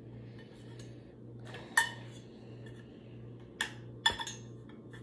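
Small hard containers clinking and knocking against a table as they are picked up and set down: one sharp clink a little under two seconds in, then a few more near the end, over a steady low hum.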